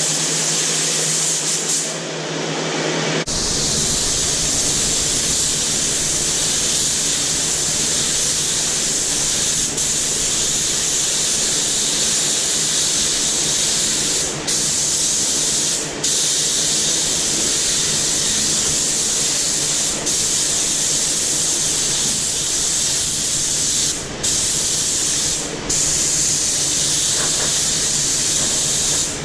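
Steady loud hiss of a compressed-air tool, such as a spray gun or blaster, breaking off for a moment several times, over a low steady hum.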